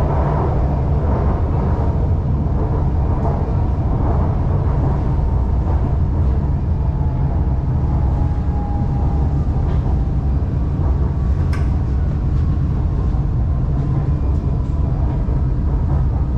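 Shanghai Metro Line 2 train running, heard from on board: a steady low rumble with a faint whine. A single sharp click comes about eleven seconds in.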